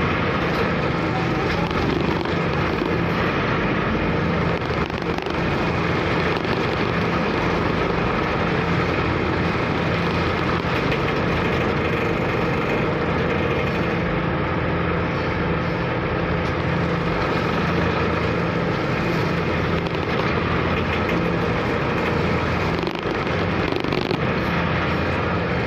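Steady drone of a car ferry's engine, with the rush of strong wind and waves over it.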